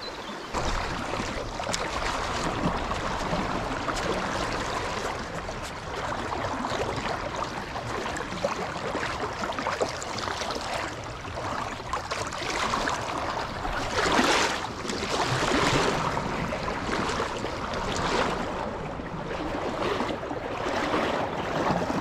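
Fast-flowing river water rushing over shallow rapids: a steady hiss of running water, with a brief louder rush about two-thirds of the way in.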